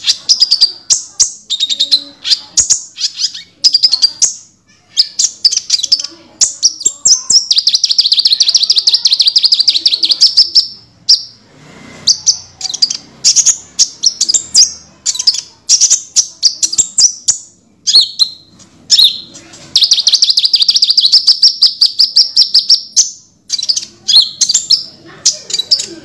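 Crimson sunbird (burung konin) singing: a loud, fast series of high, sharp chirps broken by long rapid trills, one about a third of the way in and another a little past the middle.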